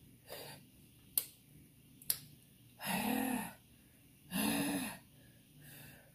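A woman breathing out hard through an open mouth, two long, breathy, voiced exhales a second or so apart, from the burn of very spicy fire noodles. Two sharp clicks come before them.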